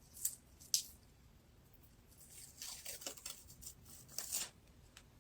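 Adhesive overpatch's backing being peeled off and the patch handled: a couple of short crackles near the start, then a longer stretch of faint tearing and crinkling in the second half.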